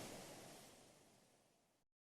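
Ship-sailing sound effect: a steady rush of water noise, fading out and stopping just before the end.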